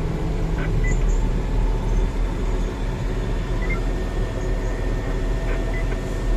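Heavy diesel earthmoving equipment engine running steadily with a constant low hum.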